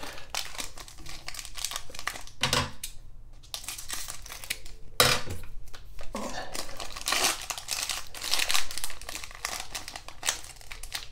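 Plastic cello-pack wrapper crinkling and rustling as a pack of trading cards is handled and pulled open, with two louder bumps about two and a half and five seconds in.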